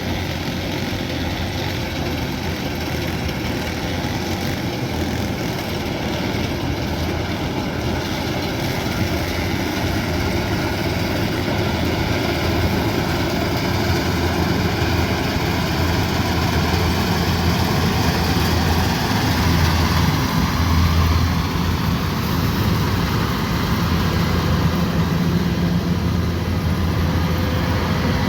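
Kubota DC108X combine harvester's diesel engine and threshing machinery running steadily, slowly growing louder.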